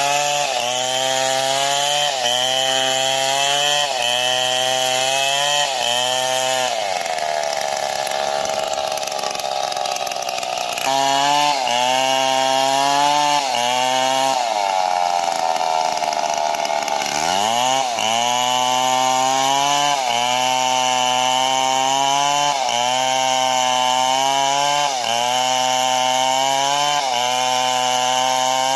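Stihl MS 070 two-stroke chainsaw running under load, its engine pitch rising and falling in a regular cycle about once a second. Twice it runs smoother at a higher pitch for a few seconds, and near the end of the second stretch it drops low and picks up again.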